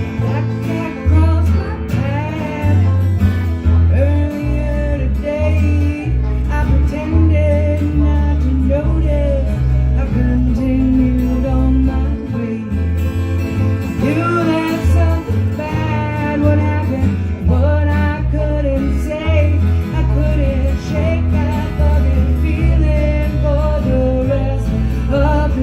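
Acoustic country band playing an instrumental break between sung verses: strummed guitar over a steady bass line, with a gliding lead melody on top.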